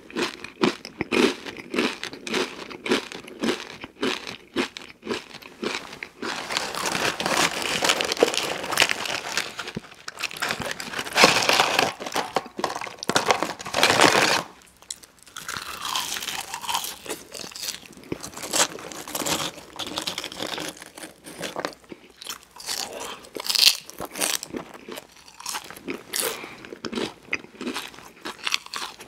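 Eating sounds: rhythmic chewing at about two to three chews a second, thickening into denser crunching for several seconds in the middle, a brief pause, then more chewing of a mouthful of McDonald's French fries.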